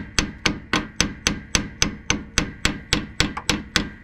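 Rapid, steady hammer blows, about four a second, tapping a jammed part into place on a heavy-duty truck's rear differential; the strikes stop just before the end.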